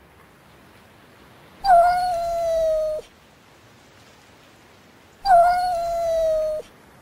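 Persian cat yowling: two long, drawn-out, howl-like calls, each about a second and a half, holding one pitch that sags slightly before ending abruptly.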